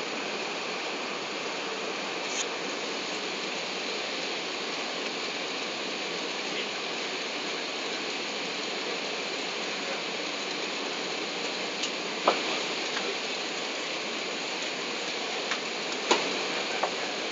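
Steady cabin noise inside an Airbus A380 on approach to land: an even rush of airflow and engine noise. A few sharp clicks stand out, the loudest about twelve seconds in and another about sixteen seconds in.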